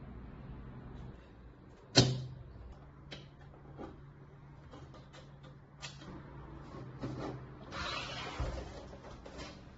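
Handling noises: a sharp knock about two seconds in, then scattered light clicks and a brief rustle near the end, over a low steady hum.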